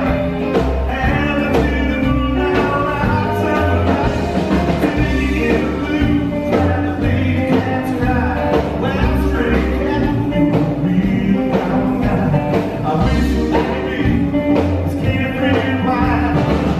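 Live rockabilly band playing loudly, driven by an upright bass and drums, with keyboard.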